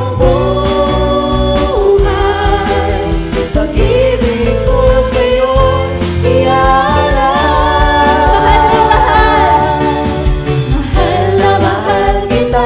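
Live worship band: several singers singing a Tagalog praise song in long held notes, over electric guitar, bass guitar, keyboard and electronic drums.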